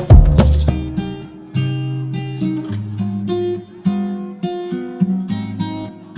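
Background music: acoustic guitar strummed and plucked, with a louder drum-backed passage that ends about half a second in, then sparse single notes and chords.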